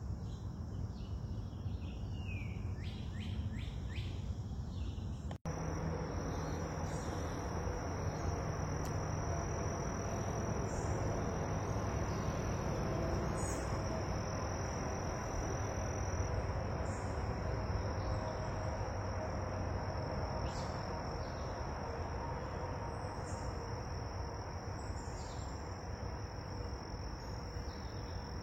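Birds chirping for the first few seconds. After a break about five seconds in, a steady high-pitched insect trill over a constant low background noise.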